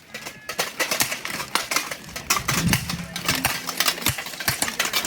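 Steel armour and blunted steel weapons clattering, with many rapid, irregular metallic knocks.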